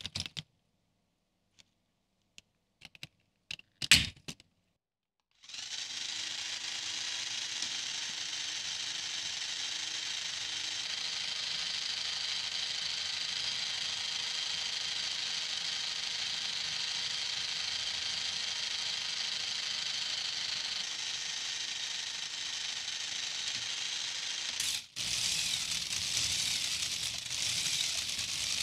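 A few separate clicks of Lego Technic parts, then a motorised Lego Technic treadmill starts about five seconds in and runs steadily. Its plastic tread links clatter over the rollers with a faint steady motor hum, dipping briefly near the end.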